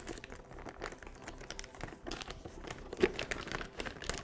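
Clear plastic wrapping bag crinkling and rustling as a network switch is worked out of it by hand, in irregular fits and starts, with a light knock about three seconds in.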